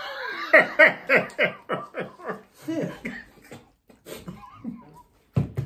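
A person laughing hard: a quick run of short 'ha' bursts, about three a second for a couple of seconds, then trailing off into softer, scattered chuckles.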